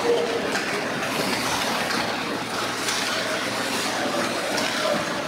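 Youth ice hockey play in an echoing indoor rink: a steady scraping of skates on the ice, a few sharp clacks of sticks and puck, and spectators calling out now and then.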